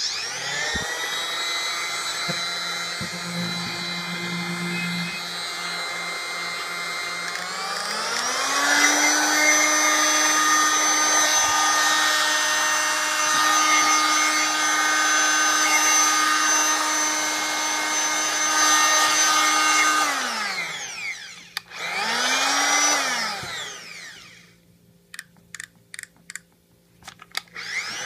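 Rockwell Sonicrafter F50 oscillating multi-tool running unloaded with a steady whine. About eight seconds in it speeds up to a higher-pitched whine and holds there. It is switched off and winds down about twenty seconds in, is run up briefly and off again, and a few clicks follow before it starts again at the very end.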